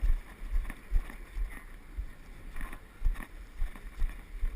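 Wind buffeting the phone's microphone, a low rumble with irregular soft thumps.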